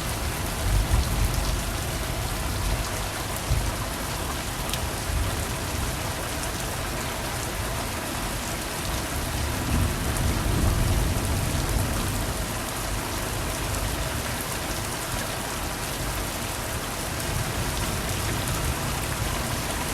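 Steady rain falling and pattering on surfaces, a dense hiss of many fine drop ticks, with a low rumble that swells briefly about a second in and again around ten seconds in.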